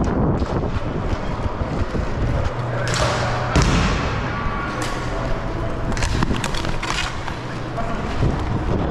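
Hockey cosom play on a hard floor: repeated clicks and knocks of plastic sticks and ball, with a heavier thump about three and a half seconds in.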